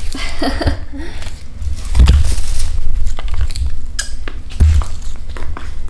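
Footsteps in flat slide sandals on a wooden parquet floor: irregular clicks and slaps of the soles, with dull low thumps from the steps and the handheld camera being jostled.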